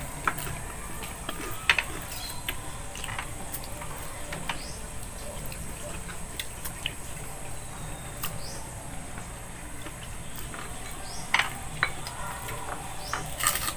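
Close-up eating sounds of fried chicken and rice eaten by hand: irregular chewing and lip-smacking clicks. A few sharper clicks come about two seconds in and again near the end.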